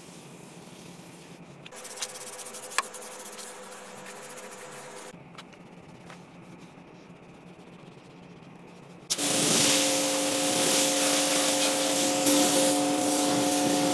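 Car-detailing work sounds: quieter spray hiss and rubbing in short edited pieces, with a single click, then about two-thirds of the way in a much louder motor-driven cleaning machine starts running with a steady whine over rushing noise.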